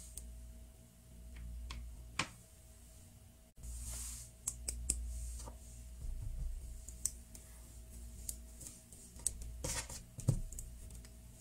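Hands working Play-Doh with a plastic roller: scattered small clicks and taps of plastic and soft dough being pressed and handled, over a faint steady hum.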